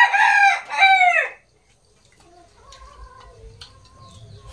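A rooster crowing once: one loud call of about a second and a half, in two parts, falling in pitch at its end.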